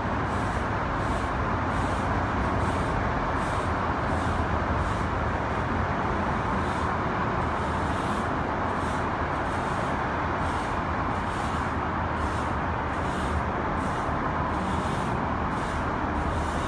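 Steady hum of city traffic from the streets below, an even roar with no distinct events.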